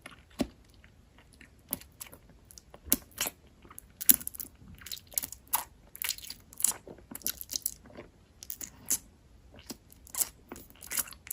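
Crunchy food being bitten and chewed close to the microphone, in irregular sharp crunches that come thicker after a few seconds.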